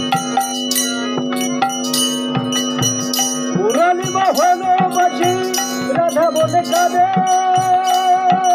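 Bengali devotional folk song: a steady drone with a hand drum and small cymbals keeping a regular beat, then a man's voice comes in about three and a half seconds in, singing a wavering, ornamented melody.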